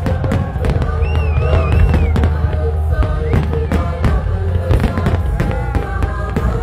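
Large aerial fireworks display: many shells bursting in quick succession, each a sharp bang, over a continuous deep rumble.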